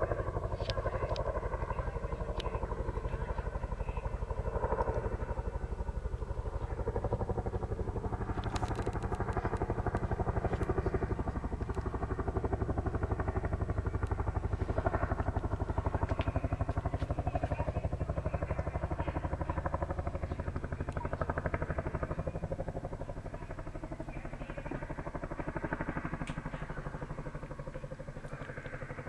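Chinook tandem-rotor helicopter flying past, its two rotors beating in a rapid, steady chop. It grows a little quieter near the end.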